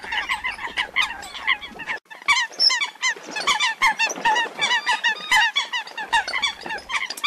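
Eurasian coot calls: many short, rapid honking notes overlapping in a dense stream, with a brief break about two seconds in. The recording is billed as a hen coot calling in distress when lost from the flock.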